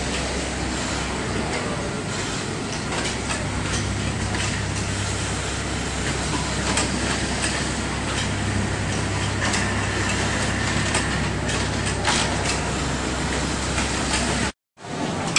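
Automatic placket-setting sewing machine and garment-factory floor: a steady low hum and hiss, with scattered sharp clicks and knocks from the machine's mechanism. The hum swells twice, around 4 s and 9 s in. The sound drops out briefly near the end.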